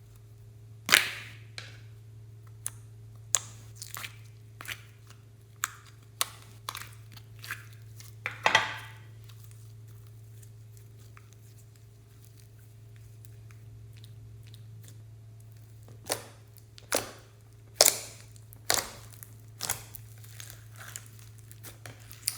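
Slime being handled and mixed by hand, giving irregular sharp pops and crackles with a quieter pause in the middle.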